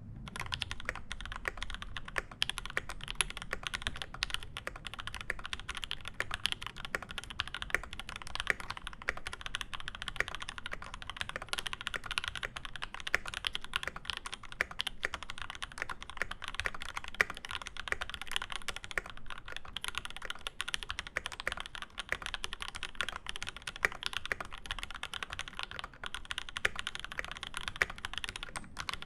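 Fast, continuous typing on a Space65 CV mechanical keyboard with lubed Alpaca linear switches, a carbon fibre plate and GMK keycaps: a dense, unbroken stream of keystroke clacks.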